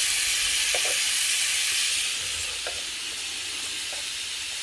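Pork neck meat sizzling as it grills: a steady frying hiss with a few faint ticks, easing a little about two seconds in.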